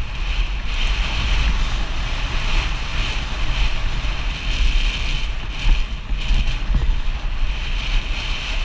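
Wind buffeting the microphone of a helmet-mounted camera on a downhill mountain bike riding fast, with tyre and rattle noise from the bike rolling over a dirt and gravel track.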